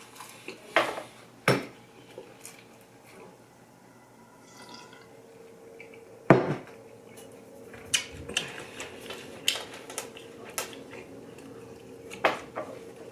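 Dishes and cutlery clinking during a meal: a scattered series of short knocks and clicks, the loudest about six seconds in, over a faint steady hum.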